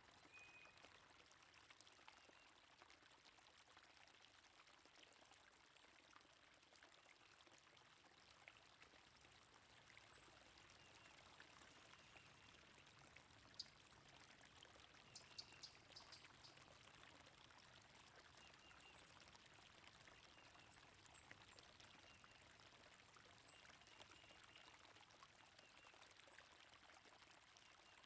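Faint, steady flow of a stream, with short high bird chirps scattered through and a quick little run of high notes about halfway.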